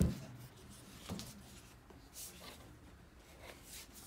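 A knock at the start as the packaging is handled, then quiet, scattered rustling and rubbing of a cardboard box being opened and turned over.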